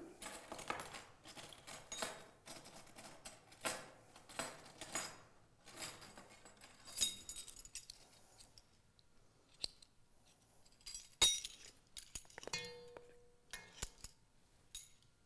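Light clicks and clinks of a set of metal measuring spoons on a ring and a plastic spice jar being handled over a stainless steel bowl while ground cinnamon is measured out. Near the end comes a short ringing note.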